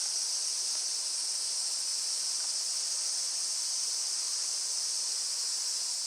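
A steady, high-pitched chorus of insects, unbroken and even in level.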